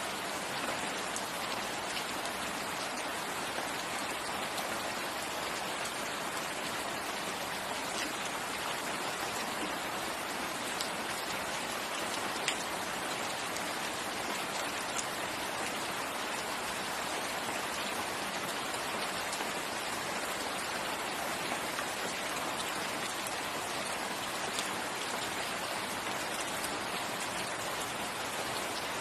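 Steady rain falling on foliage, an even hiss with scattered distinct drops pattering close by.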